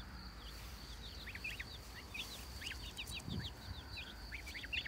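A mixed brood of young poultry (goslings, ducklings and chicks) peeping: many short, falling high-pitched peeps, several a second, overlapping without pause.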